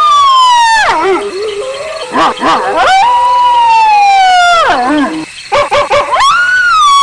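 Wolves howling together. Three long howls slide slowly down in pitch and then fall away: one at the start, one from about three seconds in, and one rising near the end. Short yipping calls sit between them, and a second, lower howl holds a steady note underneath.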